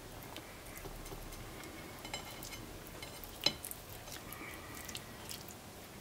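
Fingers pulling apart and spreading slices of cooked steak on a porcelain plate: faint soft, wet handling sounds and light clicks, with one sharper tap about three and a half seconds in.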